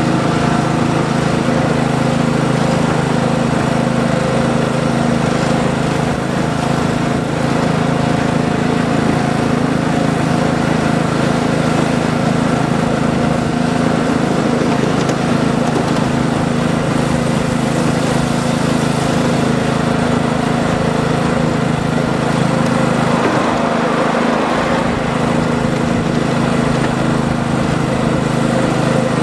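Ride-on miniature railway train running steadily, heard from aboard: an even mechanical drone with no clear beat.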